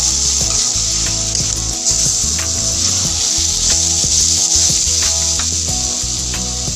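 Sliced green chillies and ground spice paste sizzling steadily in hot oil in a stainless steel wok, with a metal spoon stirring and scraping them in short ticks.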